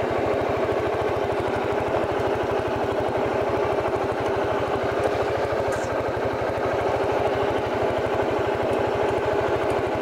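Suzuki Skywave 400 scooter's single-cylinder four-stroke engine running steadily at low revs, an even fast putter with no revving.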